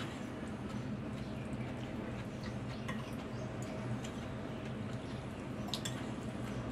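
A steel fork and spoon clink a few times against a ceramic bowl while noodles are twirled, over a steady low hum.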